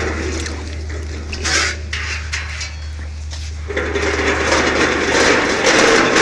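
Metal bucket of drained jet fuel being handled and moved, the fuel sloshing inside. A steady low hum gives way, a little under four seconds in, to a louder, rougher noise.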